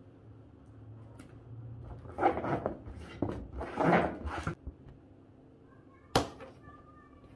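Hands pressing and rubbing clear adhesive tape onto an inflated latex balloon, a rubbery rubbing noise in two spells, then one sharp click about six seconds in.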